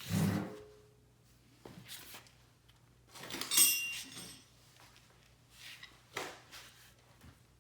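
Metal tools and car parts being handled and set down: a dull knock at the start, a louder ringing metallic clink about three and a half seconds in, and lighter knocks later.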